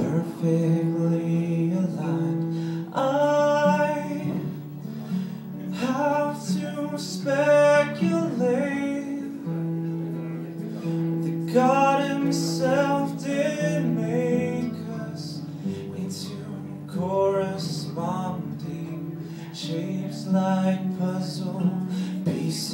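A man singing with his own acoustic guitar accompaniment, in a live solo performance; sung phrases come and go over continuous guitar.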